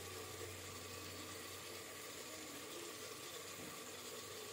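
Faint, steady sizzle of sliced onions, tomatoes and ground spices frying in mustard oil in an aluminium pressure cooker.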